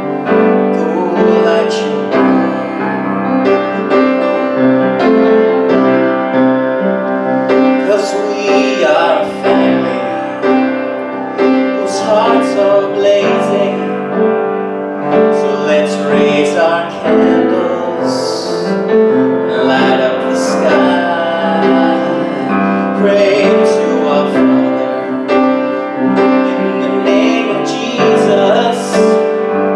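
Piano music playing continuously, sustained chords and melody.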